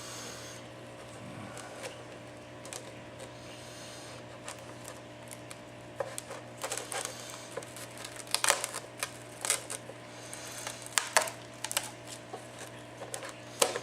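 Pry tool scraping and clicking along the edge of an iPad 4's glass digitizer as it is worked loose. Scattered short clicks and scrapes, sparse at first and more frequent in the second half.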